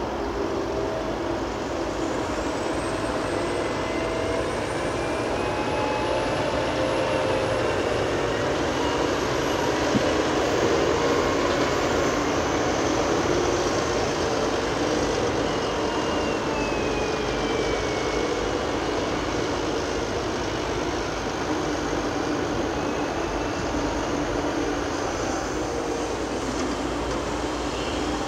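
Diesel tractors from Fendt and Claas pulling dump trailers, engines running steadily under load. The engine pitch slowly rises and falls, and the sound grows a little louder around the middle.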